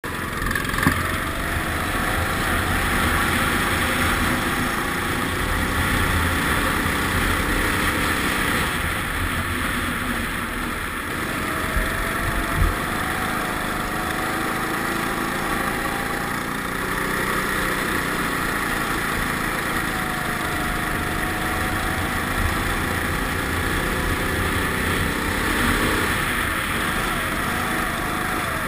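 Go-kart engine running hard at varying throttle, heard from on board with wind noise, its pitch rising and falling. Two short knocks, about a second in and near the middle.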